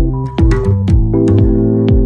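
Background music: an electronic track with held synth notes over a steady beat.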